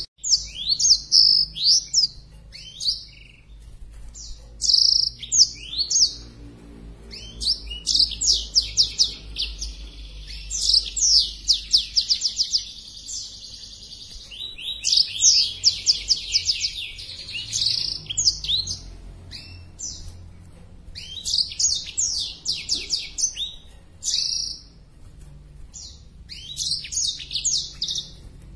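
Black-throated canary (blackthroat) singing: bursts of fast, high trilling phrases repeated again and again with short pauses between them, the full song of a bird in breeding condition.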